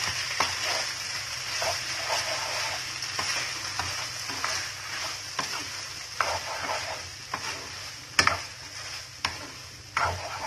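Instant noodles and sweet corn sizzling in a nonstick pan as a wooden spatula stirs and scrapes them, with a steady hiss and scattered knocks of the spatula against the pan. The knocks get sharper in the last few seconds.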